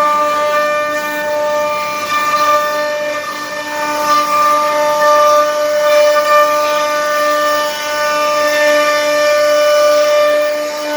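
CNC router spindle running at speed on wood, a steady whine that holds one pitch throughout.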